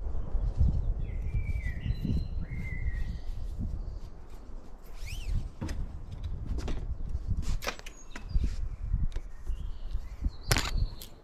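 Small birds chirping a few short calls, one rising and falling near the middle, over a steady low rumble and scattered clicks and knocks.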